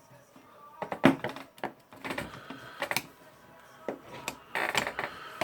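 Small hard parts of a disassembled rotary hammer drill clicking and knocking as they are handled and set down on a workbench, about six separate knocks, with a short scraping rustle near the end.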